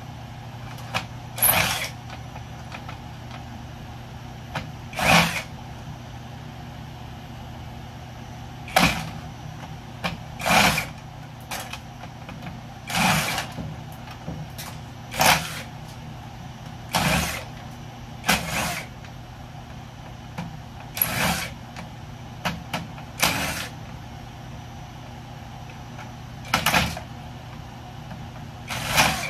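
Power drill running in short bursts of about half a second, roughly one every two seconds, backing screws out of an electrical panel one after another, over a steady low hum.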